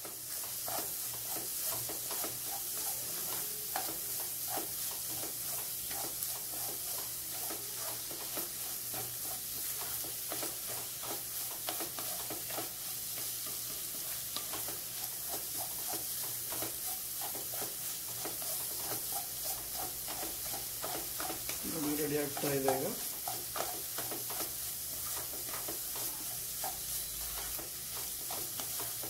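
Wooden spatula stirring and scraping scrambled egg and drumstick leaves in a nonstick kadai, over a steady sizzle of frying. A short pitched sound, like a brief voice, about three-quarters of the way through.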